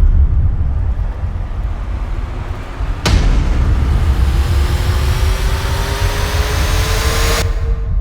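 Dramatic cinematic soundtrack: a heavy deep rumble under slowly rising drone tones, with one sudden crash about three seconds in.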